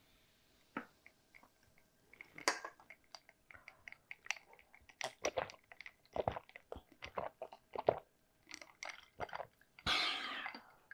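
Close-miked gulping of cola from a glass: a run of swallows with small wet clicks. Near the end comes a short, loud, breathy rush.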